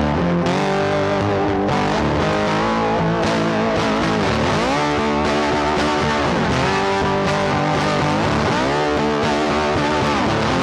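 Background music led by an electric guitar, with notes that bend and slide in pitch.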